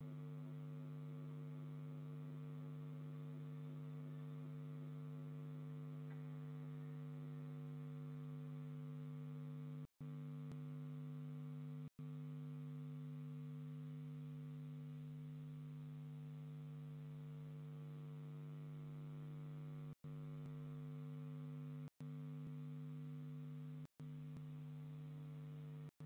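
Steady electrical hum, a deep buzz with many overtones, that drops out for a split second five times.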